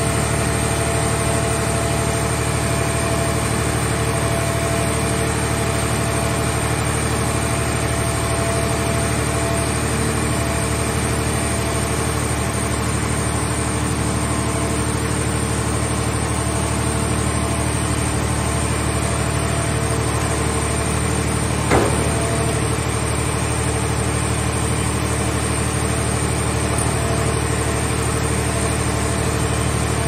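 A mobile car baler's power unit and hydraulics run steadily while its grab arm swings a scrap car into the press box. There is one sharp metal knock about 22 seconds in.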